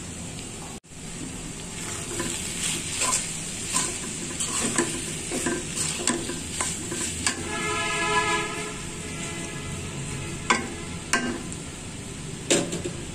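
Flat metal spatula stirring and scraping cabbage and prawns in a metal karahi over a steady sizzle, with repeated clicks and knocks of the spatula on the pan. A short squealing scrape comes a little past halfway, and a few sharper knocks come near the end.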